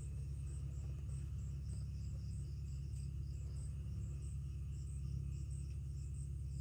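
A steady low hum, with faint high-pitched chirps repeating about three times a second.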